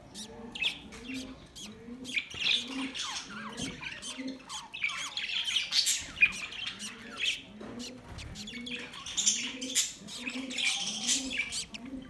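A flock of budgerigars chattering, with continuous overlapping chirps and squawks. Underneath, a low call repeats about twice a second.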